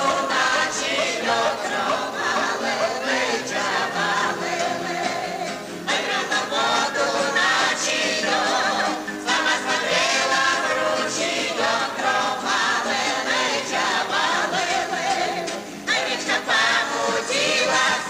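A Romani (Gypsy) choir singing together with guitar accompaniment, a dance section of a Gypsy song, with a steady rhythm.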